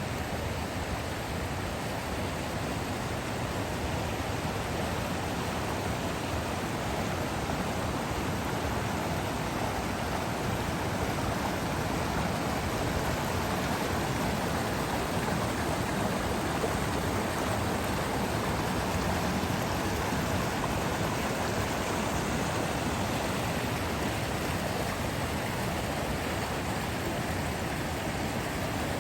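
Running water rushing steadily, an even, unbroken hiss of flowing water.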